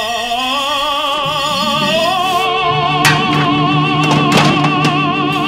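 Music: a voice holding long notes with a wide, even vibrato, stepping up in pitch about two seconds in, over steady low sustained accompaniment.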